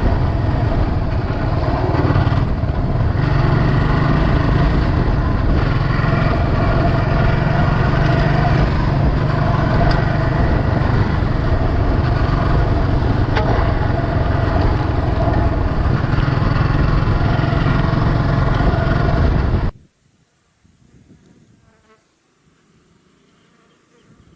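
Scrambler motorcycle engine running steadily at riding speed on a dirt road, a buzzing drone mixed with wind and road noise. It cuts off suddenly near the end, leaving only faint sound.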